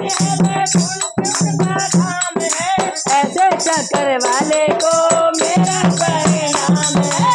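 Devotional bhajan singing by a boy and women, accompanied by a dholak drum, a hand-shaken plastic jingle clapper and manjira cymbals keeping a quick, steady beat.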